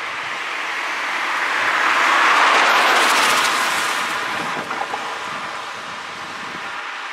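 A car driving past close by, its tyre noise swelling to a peak about two and a half seconds in and then fading as it drives away. A few short knocks come about four and a half seconds in as its wheels cross the rails. All of this is over a steady background hiss.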